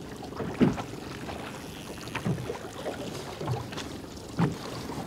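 Small waves slapping against the hull of a drifting boat: a few short, separate slaps over a steady hiss of wind and sea.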